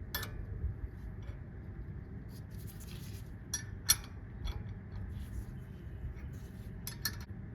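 A few scattered metallic clinks of a wrench on the doubled nuts as the outer nut is turned to draw a new wheel stud into the hub flange.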